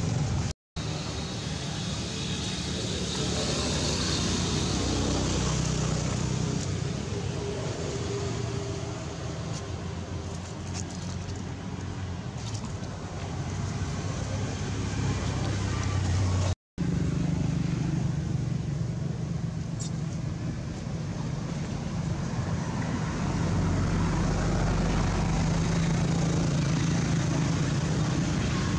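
Steady low rumbling background noise with a few faint clicks. It drops out abruptly for an instant twice, once just after the start and once about halfway through.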